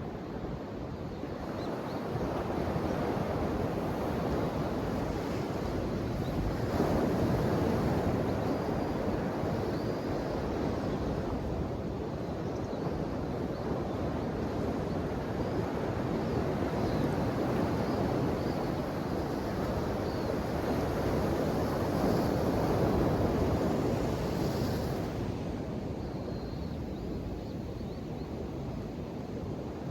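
Ocean waves surging and washing in, a continuous rushing noise that swells about seven seconds in and again through the middle, then eases off near the end.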